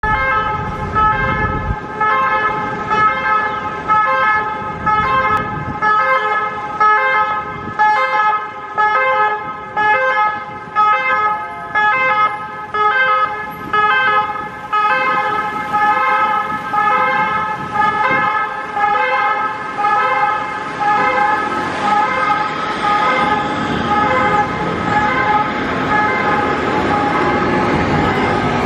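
Ambulance siren on an emergency run, a steady multi-tone note that swells and dips about once a second. It fades in the last several seconds as road traffic noise takes over.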